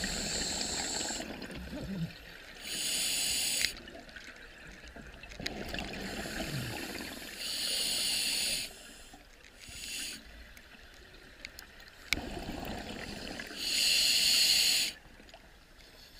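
Scuba diver breathing through an open-circuit regulator underwater: loud bursts of hiss about a second long recur every few seconds, with softer bubbling noise between them.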